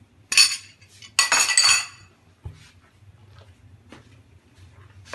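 Metal spoon and bowl clinking: a short clink about half a second in, then a longer clattering scrape just after a second, followed by a few faint ticks.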